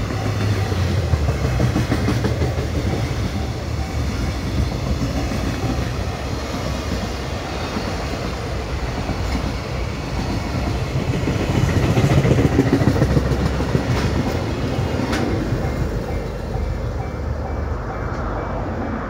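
Container wagons of a freight train rolling past at close range, with a steady rumble of wheels on rail that eases slightly near the end as the tail of the train draws away.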